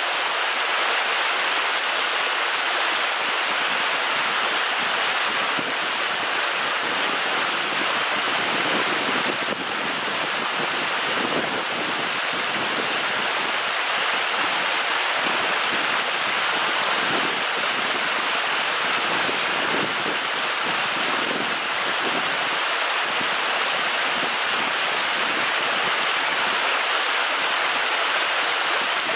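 Stream water spilling over a low rock ledge in a small cascade: a steady splashing rush of running water.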